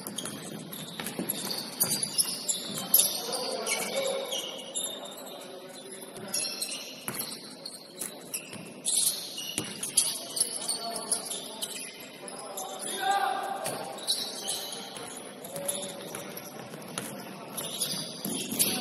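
Basketball shoes squeaking on a gym floor during play: many short, high chirps, some sliding up or down in pitch, mixed with sharp thuds and voices calling out.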